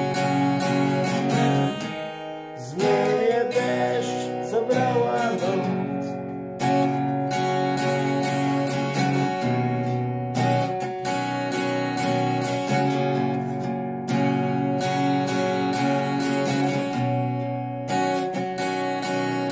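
Steel-string acoustic guitar strummed and picked alone in a slow chord pattern, the chords changing every few seconds.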